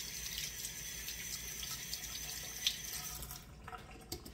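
Kitchen tap running as hands are rinsed under it, a steady hiss that stops about three seconds in when the water is turned off, followed by a few small clicks.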